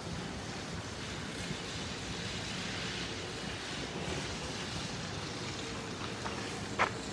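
Linde E20 battery-electric forklift driving slowly across a gritty yard: a steady hiss of tyres and air, a faint steady whine in the second half, and one short sharp click near the end.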